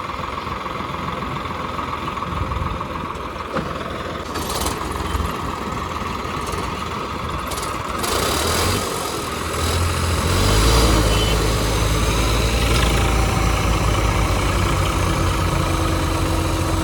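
Diesel tractor engine running. About ten seconds in it becomes much louder and deeper, with a fast throbbing pulse, and holds there until near the end.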